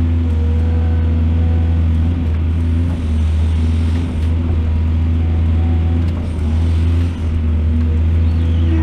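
Heavy diesel engine of earthmoving machinery running steadily with a low drone, its level dipping briefly a few times.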